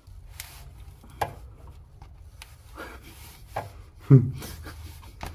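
Scattered clicks and knocks of a torque wrench on the oil drain plug as it is fitted and worked, with a louder thump about four seconds in.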